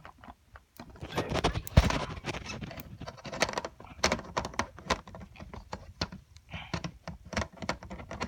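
Handling noise of the Canon XL2 camcorder's interchangeable zoom lens being fitted to the camera body's mount: a run of irregular plastic and metal clicks, taps and scrapes, with a louder knock about two seconds in.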